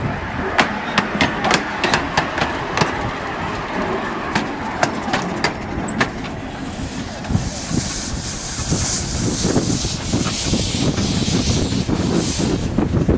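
Exmoor-built 2-6-2T 15-inch gauge steam locomotive working light engine on rails. For the first six seconds there is a run of sharp clicks and clanks of running gear and rail. From about six and a half seconds a loud, steady hiss of steam venting from the cylinder drain cocks takes over, under a low rumble of wind on the microphone.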